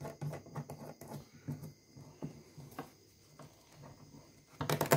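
Handling noise as a fabric shoulder strap and its metal buckle are fitted onto the steel hook of a plastic knapsack sprayer tank: soft rustling and light clicks throughout, with a louder clatter near the end.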